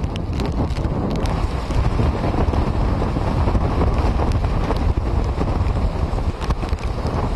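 Strong wind buffeting the microphone, a steady low rumble with a few faint clicks scattered through it.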